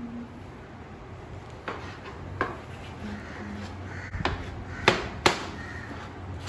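Chef's knife chopping tomatoes on a plastic cutting board: a few scattered knife strikes on the board, the two loudest about five seconds in.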